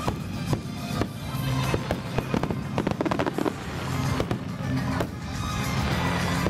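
Aerial fireworks bursting in rapid, overlapping bangs, several a second, with music playing underneath.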